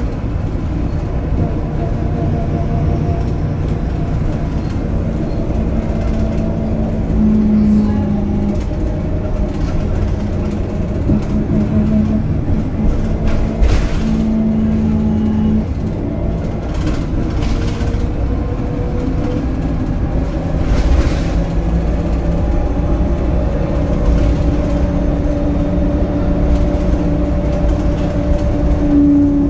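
Cabin sound of a VDL SB200 single-decker bus on the move: a steady low engine and drivetrain rumble whose note shifts in pitch a few times, with road noise and a few brief knocks and rattles from the interior. The bus's gearbox is badly worn and prone to juddering.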